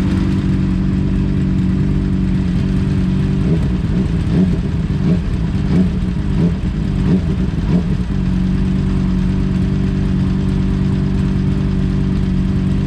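Motorcycle engine running steadily while riding, a constant drone. For a few seconds in the middle its pitch wavers up and down with the throttle, then it settles back to a steady note.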